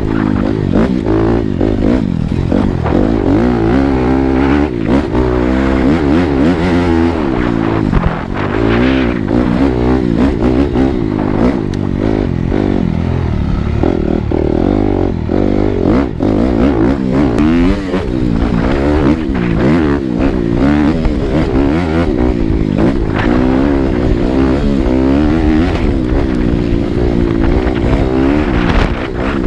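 Dirt bike engine revving up and down continually as it is ridden, with frequent knocks and clatter from the bike working over rocky ground.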